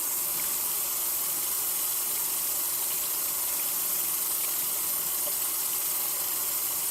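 A tap running steadily into a sink while dishes are washed under it.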